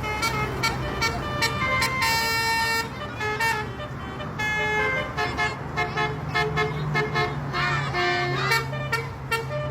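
Multi-tone 'telolet' bus horn playing a quick melody of short notes that step up and down in pitch, over the steady low hum of the bus's running engine.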